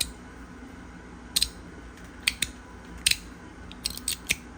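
Metal track-style fidget slider being worked by hand, its sliding piece snapping along the track in a series of sharp clicks at irregular intervals, some in quick pairs.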